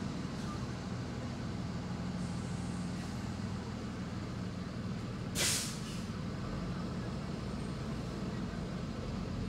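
School buses running with a steady low engine sound, and one short air-brake hiss about halfway through.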